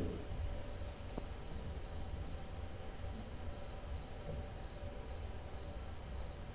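Crickets chirring steadily at one unbroken high pitch, with a low rumble underneath.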